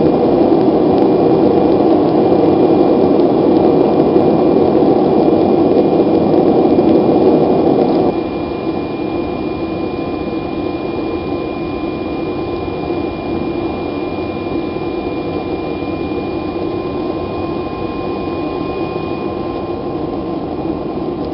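Propane forge burner running with a steady roar. About eight seconds in it suddenly drops to a quieter, lower roar, and a faint steady whistle runs over it. The propane is running low.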